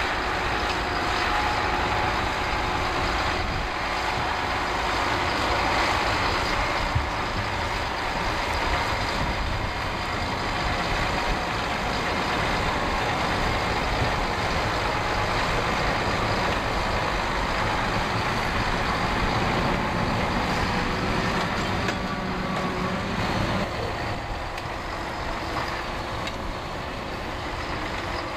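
Valtra tractor's diesel engine running steadily under load as it pulls a five-furrow reversible plough through the soil, easing slightly near the end.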